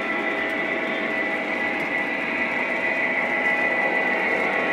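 Lionel model trains running on the layout: a steady whir of small electric motors and wheels on track, with a constant whine, growing slightly louder.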